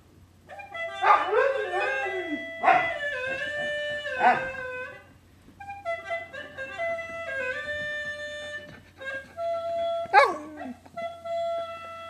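A gourd instrument plays held notes while a Siberian husky joins in with short, bending howls: three close together in the first few seconds and one more about ten seconds in.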